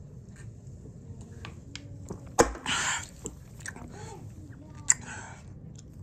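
A person lets out two sudden, short, breathy bursts. The first, about half a second long, is the louder; the second comes near the end.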